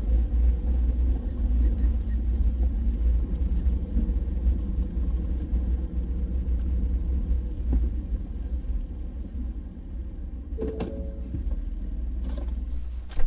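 Low, steady rumble of a motor vehicle driving, with a few short held tones coming in near the end.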